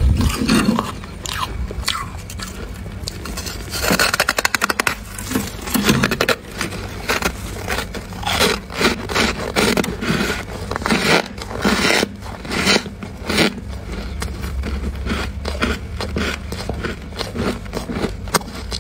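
Freezer frost crunching as it is bitten and chewed, in irregular crisp crunches and scrapes, with a quick run of crackles about four seconds in.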